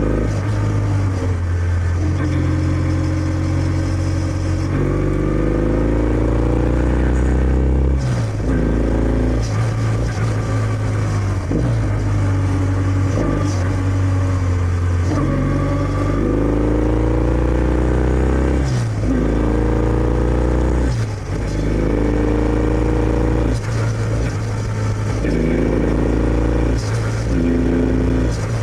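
Kawasaki W650's air-cooled parallel-twin engine through its stock exhaust under way. It rises in pitch again and again as it accelerates, with a short break and a drop in pitch at each gear change.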